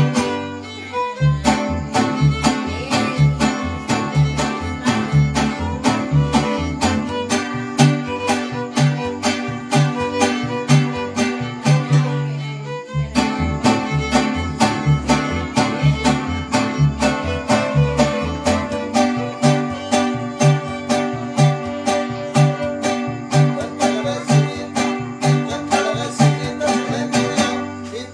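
Instrumental string-band music: a fiddle over strummed guitars and a plucked bass keeping a steady beat, with short breaks in the bass about a second in and about thirteen seconds in.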